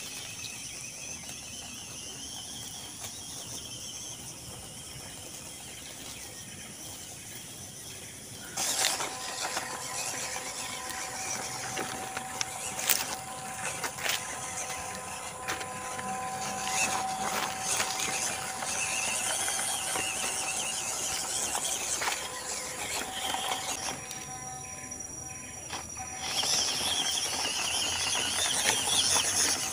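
Electric drive motor and gearbox of a WPL D12 RC mini truck whining steadily as it crawls, with its tyres crackling over dry leaves and twigs. The sound comes in much louder and closer about eight seconds in, and the whine drops out briefly a few seconds before the end.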